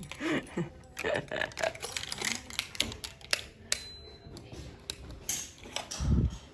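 Irregular clicks and knocks of objects being handled, with faint voices in the first half and a low thump near the end.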